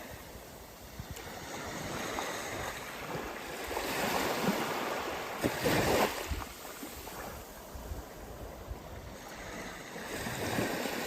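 A rushing, surf-like wash that builds to a peak about four to six seconds in and then ebbs away, with a smaller swell near the end.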